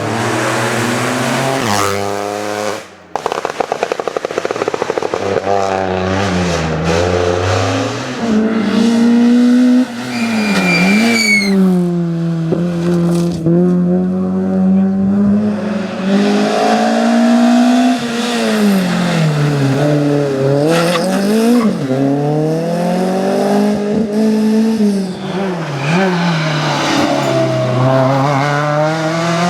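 Rally car engine at full throttle, its pitch climbing and falling again and again as it runs through the gears and brakes for corners. About three seconds in, the engine cuts off briefly, followed by a quick run of crackling pops.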